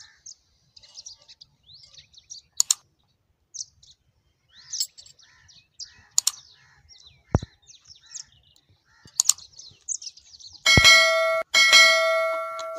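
Small birds chirping throughout, with a few sharp isolated clicks. Near the end a loud bell-like ring sounds twice: the first is held and cut off abruptly, the second fades away. The ring is the subscribe-button animation's bell sound effect.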